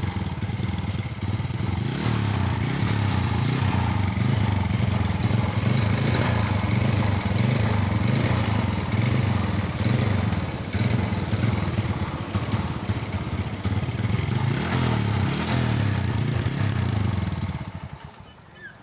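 Bajaj Caliber motorcycle's single-cylinder four-stroke engine running at idle with small rises and falls in speed, newly running again after its rat-chewed wiring was replaced. It cuts off near the end.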